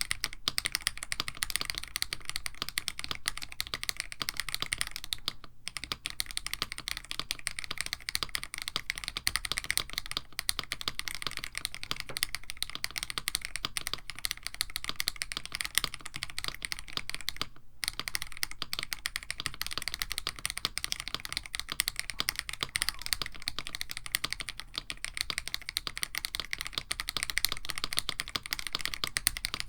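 Continuous fast typing on a mechanical keyboard: a KBD67 Lite with an FR4 plate, Krytox 205g0-lubed AKKO Radiant Red linear switches and GMK-style keycaps, giving a dense stream of keystroke clacks. The typing pauses briefly about five and a half seconds in and again near eighteen seconds.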